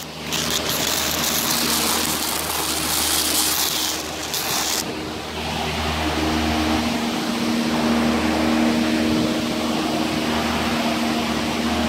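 Steady machine hum with a few low steady tones; a hiss in the high range drops away about five seconds in.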